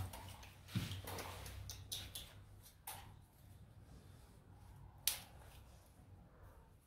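A quiet room with a low hum, a few soft clicks in the first three seconds and one sharp click about five seconds in.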